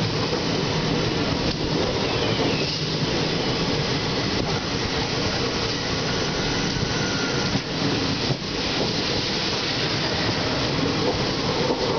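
Indian Railways express passenger coaches rolling slowly past on the adjacent track: a steady rumble of steel wheels on rail.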